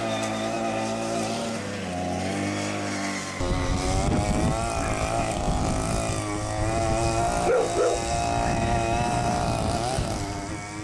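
Small gas engine of a stand-up scooter running, its pitch rising and falling as the scooter moves. It turns louder and rougher about three and a half seconds in.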